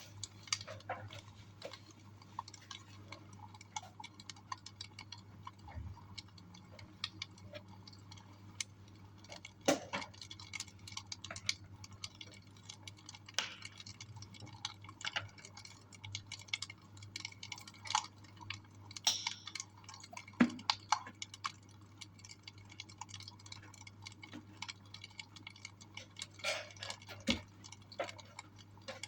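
Wood fire crackling in a fireplace: irregular snaps and pops at uneven spacing, over a steady low hum.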